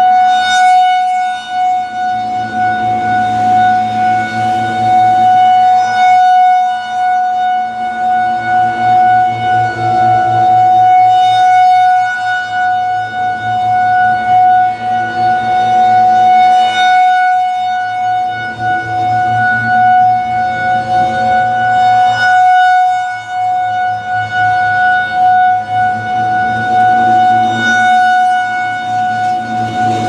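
Federal Signal 2001-SRN electromechanical siren sounding a steady alert tone. Its horn turns slowly on a rotator set to 8 RPM, so the tone swells and fades every several seconds as the horn sweeps toward and away.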